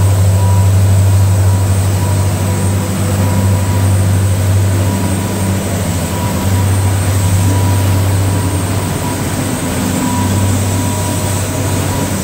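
Twin Caterpillar 3116 turbocharged inline-six marine diesels running steadily at cruising speed: a loud, even low drone. The rush of the wake and spray runs underneath it.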